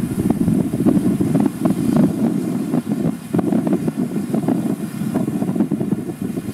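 Wind buffeting the microphone in uneven gusts, heavy in the low end, with no steady engine note standing out.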